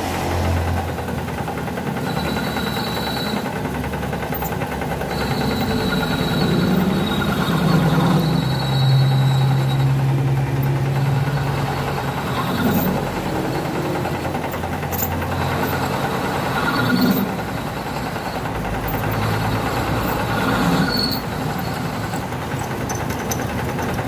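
Benchtop metal lathe running with a steady motor hum while its cutting tool turns down a motorcycle piston. A high thin whine from the cut comes and goes several times.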